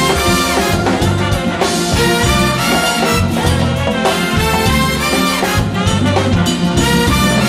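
Big band playing an instrumental calypso passage, a brass section over bass and drums with a steady dance beat.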